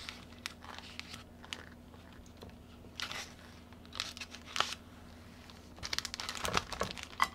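Thin spring roll wrappers and their plastic packet crinkling and rustling as a single sheet is peeled off the stack. Scattered soft crackles come in short clusters, busiest a little before the end.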